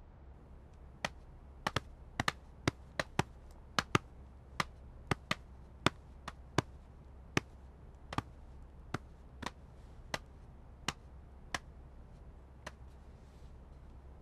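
Footsteps of two men on a hard hallway floor: a run of sharp taps, uneven and overlapping at first, then settling to a steady walking pace and stopping near the end.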